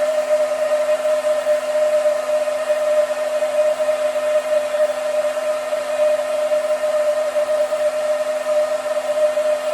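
Hair dryer running steadily on a woman's hair: a constant motor hum over the hiss of its airflow.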